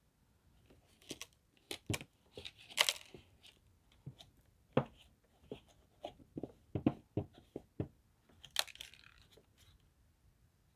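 Irregular crackling and crunching, a dozen or so short sharp crackles spread unevenly, with no vacuum motor running.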